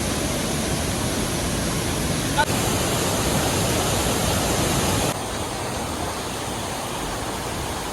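Waterfall's rushing water, a steady, even noise that steps slightly lower in level about five seconds in.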